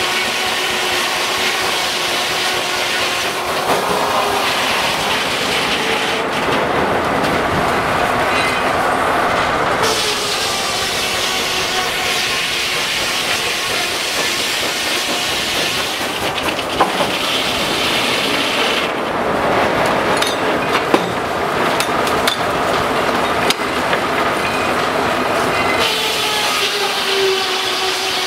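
Steam-powered sawmill running, with steady machinery noise, steam hiss and a pitched hum, and a few sharp knocks in the second half.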